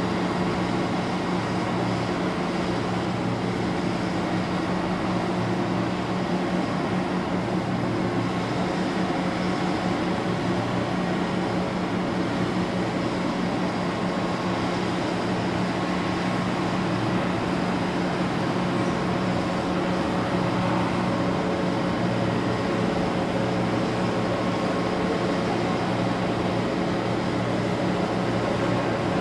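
Towboat's diesel engines running with a steady low drone and hum, pushing loaded coal barges through the lock.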